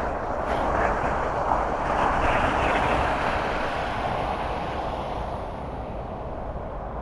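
Road noise from a moving car: a steady rush of tyres and wind over a low rumble, swelling between about one and three seconds in and then easing off.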